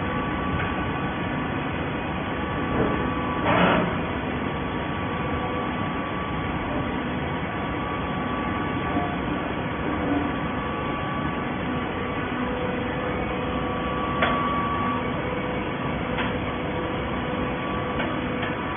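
Industrial hydraulic shredded-paper baler running steadily, its hydraulic pump and motor giving a continuous hum. A louder burst comes about three and a half seconds in, and a sharp click about fourteen seconds in.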